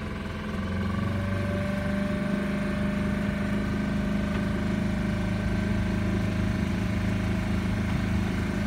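Motorboat engine running at a steady speed, a low even drone that holds one pitch throughout as the boat cruises along.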